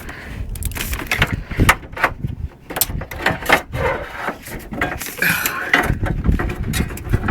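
Car door-lock barrel and its connector cable being pulled through the inside of a car door: a string of irregular clicks, knocks and scraping rattles as the parts catch against the door shell.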